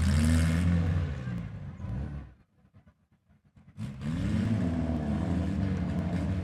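Demolition derby mini truck engines revving up and down under load. The sound drops almost to nothing for about a second and a half midway, then the revving resumes.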